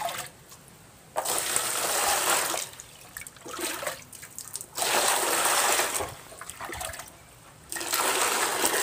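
Water poured from a plastic basin into another plastic basin, gushing and splashing as the basin fills: three pours of about a second each, with short pauses between them while more water is scooped.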